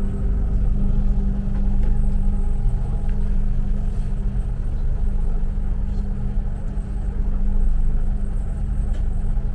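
Steady low rumble and droning hum of a Thames river-bus (Uber Boat) under way, heard inside its passenger cabin.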